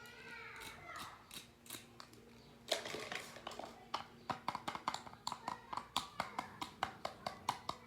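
Small plastic doll accessories being handled, clicking and tapping sharply at about three clicks a second in the second half.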